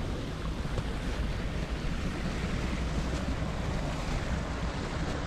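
Wind buffeting the microphone outdoors: a steady low rumble that rises and falls unevenly, with no other distinct sound standing out.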